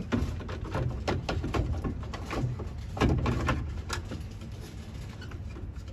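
Irregular clicks and knocks of machine parts being handled as the coffee grinder is refitted into the espresso vending machine, over a low steady hum.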